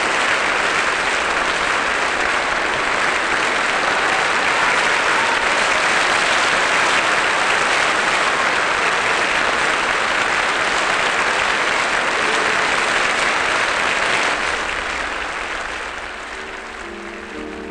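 Theatre audience applauding steadily at a curtain call, the applause fading out over the last few seconds.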